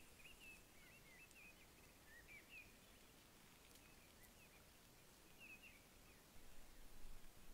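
Faint birdsong: short, quick chirping phrases, busiest in the first few seconds and again briefly past the middle. A few faint clicks and a low rumble near the end.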